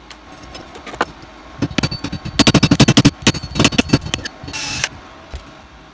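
Slag hammer chipping the slag off a freshly laid stick-weld bead on steel plate: a rapid run of sharp metallic taps, about ten a second at its fastest, with scattered single taps around it and a short scrape near the end.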